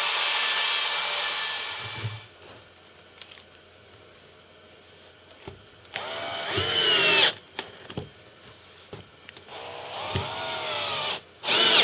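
CNC router spindle cutting acrylic, a steady high whine with cutting noise, which dies away about two seconds in. Then a cordless drill runs in short bursts, its whine rising and falling in pitch, once about six seconds in and twice near the end, as it drives screws into the acrylic.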